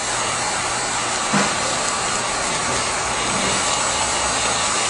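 Handheld heat gun blowing hot air steadily, shrinking plastic shrink film around a book.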